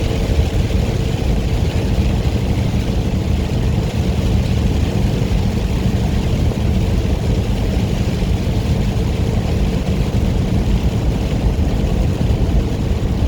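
Inside a semi truck's cab at highway speed: the diesel engine's steady drone under continuous tyre and road noise on a rain-soaked interstate.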